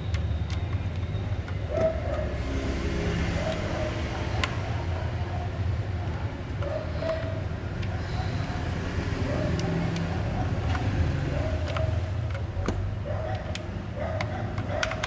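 A steady low rumble fills the background, with a few sharp clicks from a mechanical keyboard's bare switches being pressed, a cluster of them near the end.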